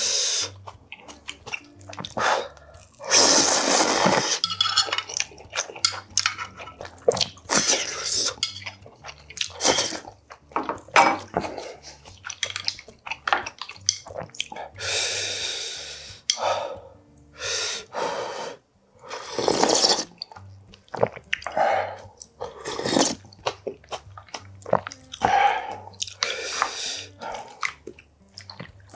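Close-up eating sounds of spicy ramen stew: several loud noodle-and-broth slurps, chewing, and clicks of a wooden ladle and chopsticks against ceramic bowls.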